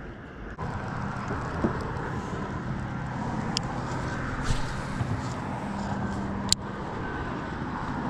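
Steady hum of road traffic crossing the highway bridge overhead, with a sharp click about six and a half seconds in.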